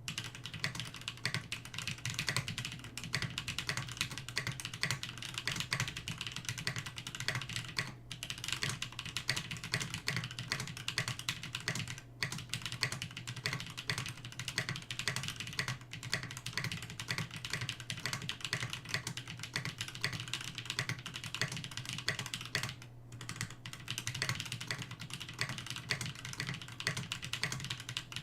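Continuous fast typing on a Rama M65-A mechanical keyboard with lubed 78g Holy Panda tactile switches and doubleshot keycaps, the keystrokes clattering in quick runs with brief pauses. A low steady hum sits underneath.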